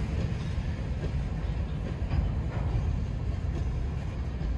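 Loaded steel covered hopper cars of a freight train rolling past, their wheels on the rails making a steady low rumble.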